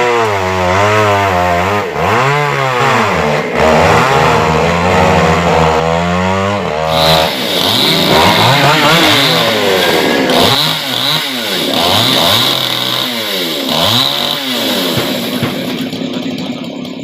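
Two-stroke chainsaw running, its engine revving up and down again and again as it cuts through the trunk of a tree that fell on a house.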